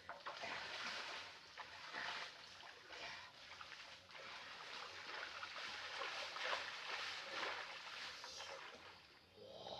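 Water splashing and trickling, with irregular sloshes throughout.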